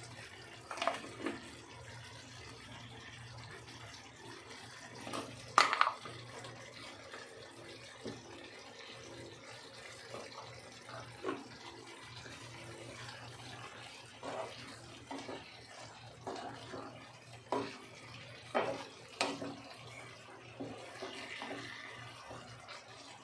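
Wooden spatula scraping and knocking against a nonstick pan while stirring a thick vegetable curry, in scattered strokes, the loudest about five and a half seconds in. A steady low hum runs underneath.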